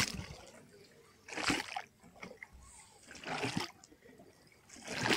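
Small sea waves slapping against the underside of a pier, four hollow splashes about one and a half to two seconds apart, with trapped air under the pier making them sound like beating a drum.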